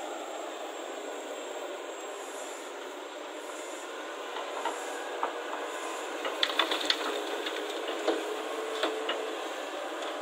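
Hyundai excavator running steadily, engine and hydraulics. About halfway through, a series of sharp knocks and rattles as soil and stones tip from the bucket into the tipper truck's steel body, the loudest cluster around two-thirds of the way in.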